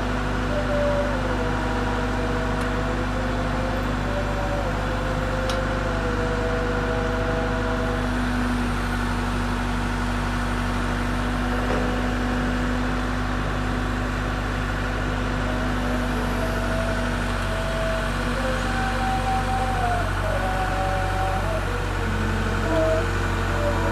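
Case Super L backhoe loader's diesel engine running steadily, with a higher tone over it that steps up and down in pitch now and then.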